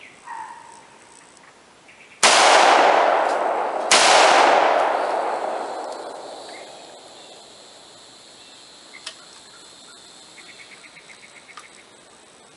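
Two gunshots about a second and a half apart, each followed by a long echoing tail that dies away over several seconds.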